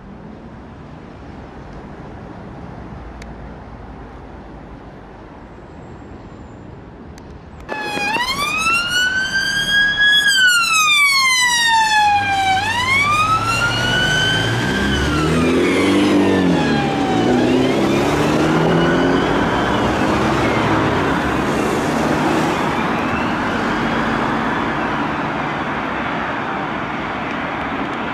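Police van's siren wailing, starting suddenly about a quarter of the way in after steady outdoor background noise. Its pitch rises and falls in slow sweeps of a few seconds each, a lower wavering tone joins for a few seconds in the middle, and the siren then carries on less clearly over traffic noise.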